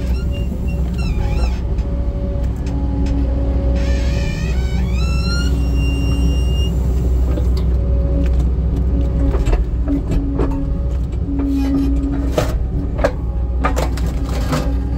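Skid steer engine running steadily, heard from the cab, with the hydraulics of a homemade wood splitter attachment whining and rising in pitch about a second in and again about four seconds in. A few sharp knocks come in the second half.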